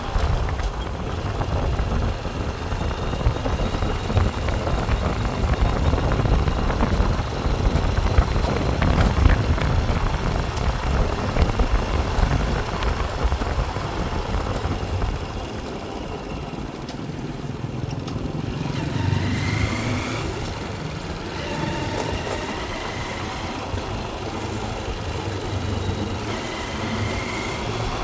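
Vehicle engine and road noise: a steady low rumble that eases about halfway through, with a few short high tones in the second half.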